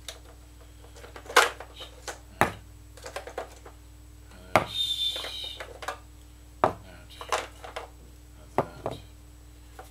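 Batteries being pulled from a portable cassette boombox's battery compartment and set down on a desk one at a time: a string of sharp clicks and knocks a second or two apart, with a short rattle about halfway through.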